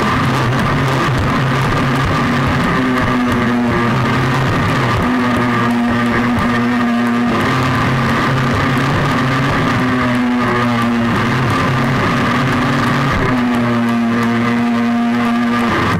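Background music: sustained held notes and chords that change every second or two, at an unvarying loud level.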